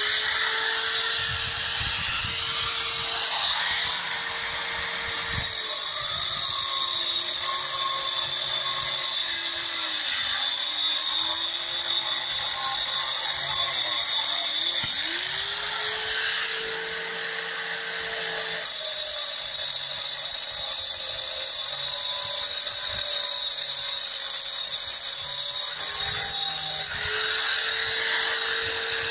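Small electric angle grinder running and grinding into a concrete floor. Its motor whine sags in pitch several times as the disc is pressed in, then recovers.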